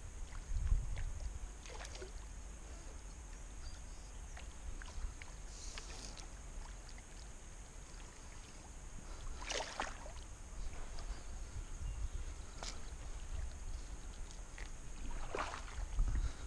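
Quiet fly-fishing water sounds: a few soft splashes a few seconds apart as a small topwater popping bug lands and is twitched on the river surface, over a low rumble of wind on the microphone and a steady high hiss.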